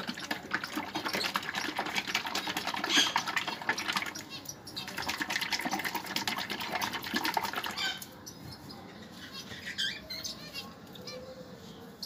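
Liquid calcium medicine mixed with multivitamin being shaken hard by hand in a closed plastic bottle: rapid sloshing and rattling. It pauses briefly about four seconds in and stops about eight seconds in, when the bottle is set down.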